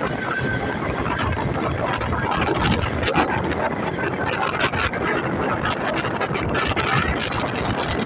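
Motorcycle riding along a road, its engine running under steady wind rush and buffeting on the microphone, with passing traffic.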